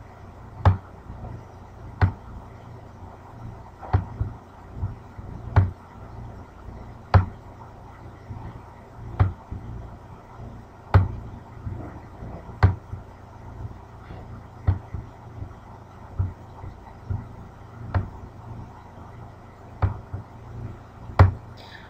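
Computer mouse clicking, single sharp clicks spaced irregularly about a second apart, as wires are placed one by one in a circuit schematic, over a low steady hum.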